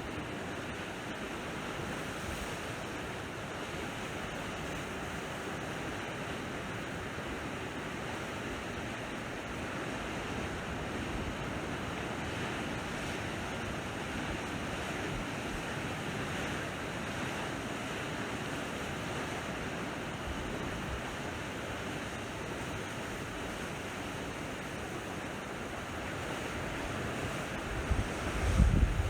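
Sea waves washing steadily onto the shore. Near the end, a gust of wind buffets the microphone with a short low rumble.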